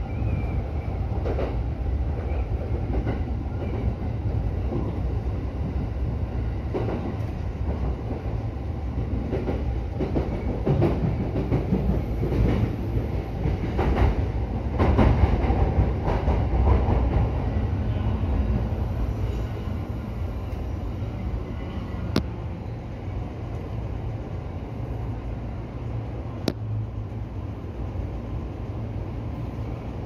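E231-series electric commuter train heard from inside the driver's cab, wheels clattering over points and rail joints. The noise is louder midway and then quieter as the train runs into the platform. Two sharp clicks come near the end.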